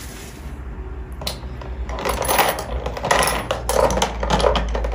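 Screwdrivers and metal bobbins clinking and rattling in a plastic accessory drawer as they are handled, starting about a second in as a run of short clicks.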